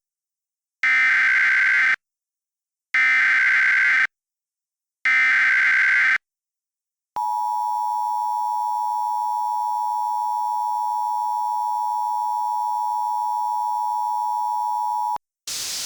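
Emergency Alert System header: three short bursts of SAME digital data, each about a second long with a second's gap between, then the steady two-tone attention signal held for about eight seconds before it cuts off sharply. Together they announce an emergency alert.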